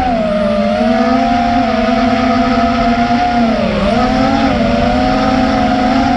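FPV racing quadcopter's motors and propellers whining at a steady pitch, dipping briefly about four seconds in as the throttle eases, then recovering.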